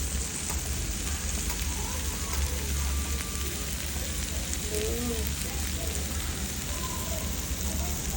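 Meat sizzling on a Korean BBQ grill, a steady frying hiss with a low hum underneath.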